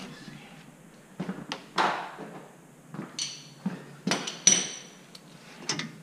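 Metal tools knocking and clanking on a car's rear brake caliper while the caliper bolts are worked loose: about ten sharp, irregular knocks, a few of them ringing briefly.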